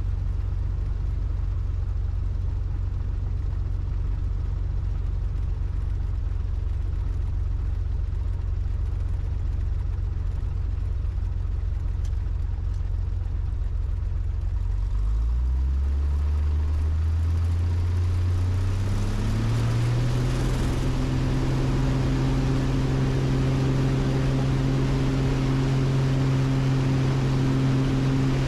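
Maule M-5 light aircraft's piston engine and propeller running steadily at low power, then speeding up about halfway through and settling at a higher, steady pitch with more hiss.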